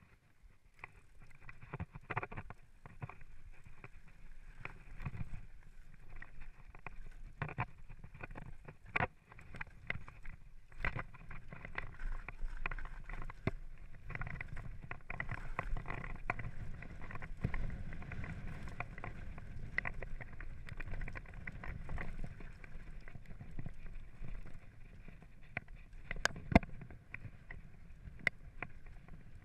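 Mountain bike rolling down a rocky singletrack: tyres crunching over stones and gravel, with frame and drivetrain rattling and many sharp knocks as it hits rocks, the loudest knock near the end.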